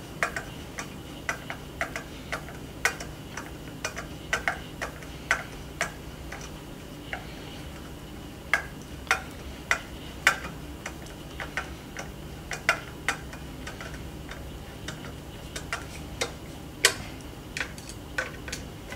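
Nut driver turning small screws into a plastic pool pump diffuser: irregular light clicks, about one or two a second.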